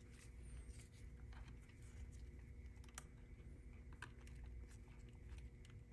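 Faint small clicks and taps of hands working a plastic steering-wheel horn cover and its horn wire clip, with one sharper click about three seconds in, over a faint steady hum.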